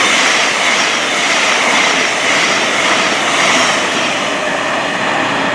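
Thameslink Class 700 electric multiple unit thundering through the platform at speed close by: a loud, steady rush of wheel and air noise with a faint steady high whine.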